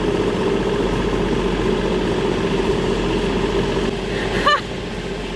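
Farm tractor engine running steadily with a constant drone, and a brief high call about four and a half seconds in.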